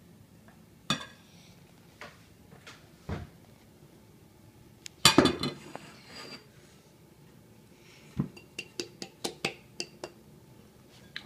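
Glass mixing bowls clinking and knocking against each other and against a spatula while dry ingredients are poured from one bowl into the other. Scattered single clinks, a loud burst of clatter about five seconds in, and a quick run of sharp clinks near the end.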